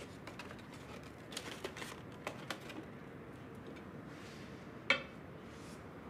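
Faint clinks and taps of plates and foam takeout containers being handled on a wooden table, with one sharper knock about five seconds in.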